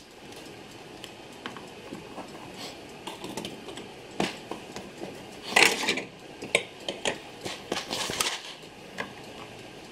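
Scattered light clicks and knocks of small items being handled on a clock repair workbench: a pen being set down and a bushing assortment box being picked up and moved, with a cluster of knocks a little past the middle and more towards the end.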